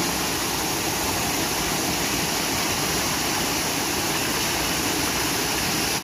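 Small mountain-stream waterfall: water spilling in a thin sheet over a rock ledge into a shallow pool, a steady rushing splash.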